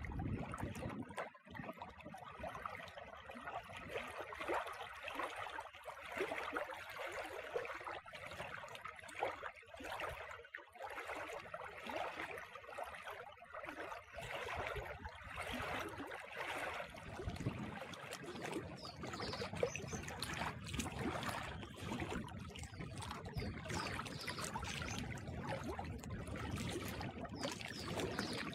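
Small waves lapping and splashing against a rocky lakeshore, a steady irregular trickling and slapping of water. From about halfway through, a low rumble joins in.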